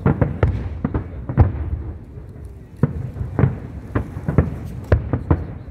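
Aerial firework shells bursting in an irregular string of sharp bangs, about a dozen, with a short lull a little after two seconds in.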